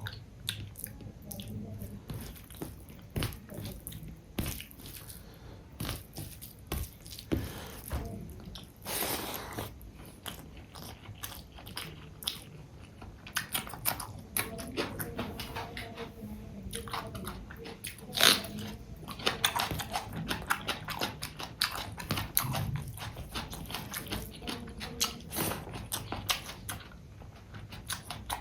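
A person eating fish curry and rice with raw onion and green chilli close to the microphone: steady chewing and biting with many short, sharp clicks.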